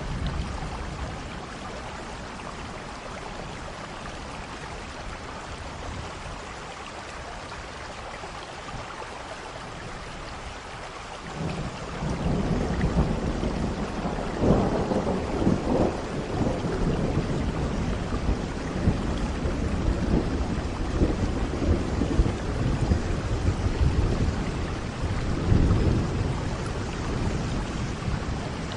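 Steady rain falling; about a third of the way in a long, low rumble of thunder builds and rolls on, swelling a couple of times.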